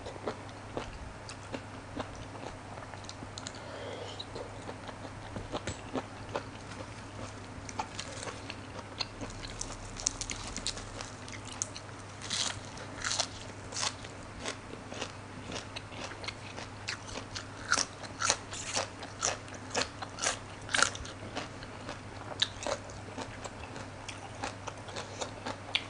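Close-miked mouth sounds of eating: chewing blood cockle meat, then biting and crunching crisp raw leafy greens. The sharp crunches come thick and loud through the middle of the stretch and thin out near the end.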